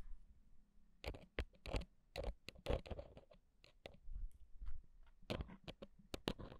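Metal ear pick scraping and tapping against a microphone's capsule and grille, right at the microphone: irregular crisp clicks and short scratchy strokes, starting about a second in.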